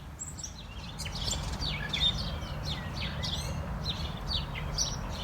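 Songbirds chirping and singing in many quick, short notes, over a low steady background rumble.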